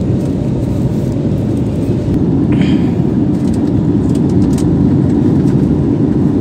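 Airliner cabin noise: a steady low rumble of engines and air, with a few faint ticks.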